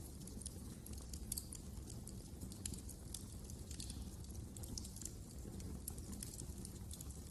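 Fireplace fire crackling: frequent small, irregular snaps and pops over a low, steady rumble of the burning fire.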